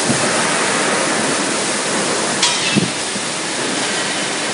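Steady rushing noise, like the general din of a factory hall, with a short sharp click about two and a half seconds in and a couple of brief dull knocks.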